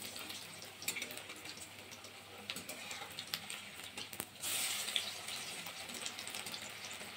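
Hot oil sizzling around spinach-and-mung-dal fritters deep-frying in a metal kadai, with a few light clicks of a metal spatula against the pan as the fritters are turned over. The sizzle grows louder about four and a half seconds in.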